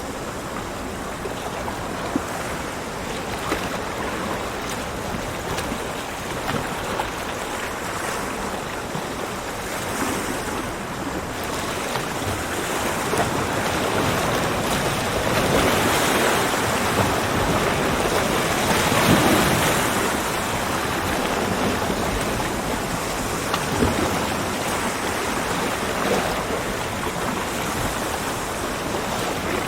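Ocean surf washing onto a beach: a continuous rush of breaking waves that swells to its loudest about two-thirds of the way through, then eases back.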